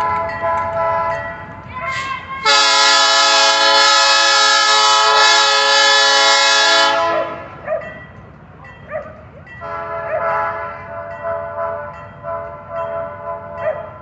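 Diesel locomotive's air horn sounding one long, steady blast of about four and a half seconds, starting a couple of seconds in, over the low rumble of the passing train. After the blast the train fades into fainter scattered tones and noise.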